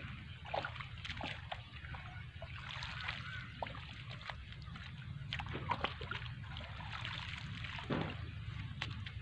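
Wet soil being dug and shifted with a hoe in a shallow flooded irrigation channel: scattered splashes, plops and scrapes of mud and water, over a steady low background noise.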